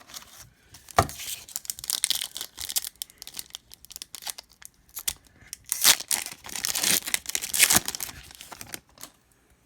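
A hockey card pack's wrapper being torn open and crinkled in the hands: a run of irregular crackling tears, loudest about six and seven and a half seconds in.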